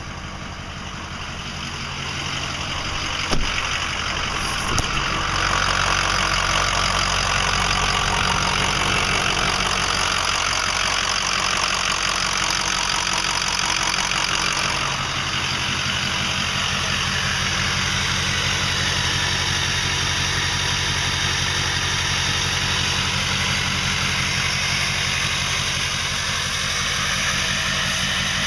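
Ford 6.0L Power Stroke V8 turbo-diesel idling, its sound growing louder over the first few seconds and then holding steady, with two sharp clicks early on. The owner suspects a bad injector, FICM or injector harness behind the idle problem.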